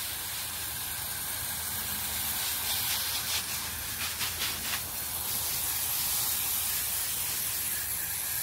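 Garden hose spray nozzle hissing steadily as it sends a fine mist of water over the plants.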